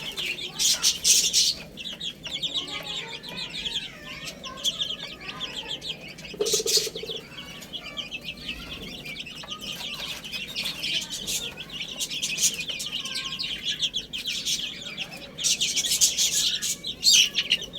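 Many baby chicks peeping, a dense run of rapid, high chirps that overlap continuously and swell louder in bursts a second in, around six seconds and near the end.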